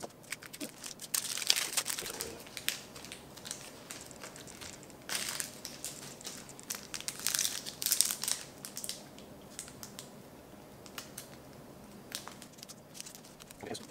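Plastic trading-card pack wrapper crinkling and tearing as it is ripped open, in two spells of crackly rustling, one about a second in and a longer one from about five to nine seconds in. Quieter handling of the cards follows, with scattered light ticks.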